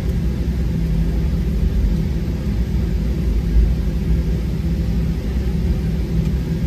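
Cabin noise of a Boeing 737-800 taxiing after landing, heard from a window seat over the wing: a steady low rumble with a steady hum from its CFM56-7B engines at idle.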